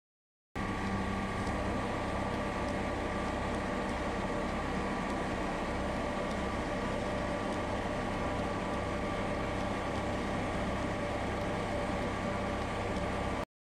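Vapour-blasting cabinet running: a steady hiss over a constant hum as the wet-blast gun sprays slurry onto a Honda CR500 aluminium engine case. It starts abruptly about half a second in and cuts off just before the end.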